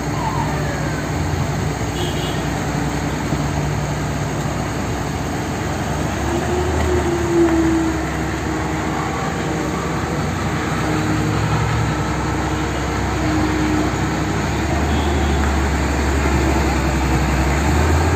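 Caterpillar hydraulic excavator running steadily as it works its boom and bucket, with a brief louder whine about seven seconds in. The low engine rumble grows stronger near the end.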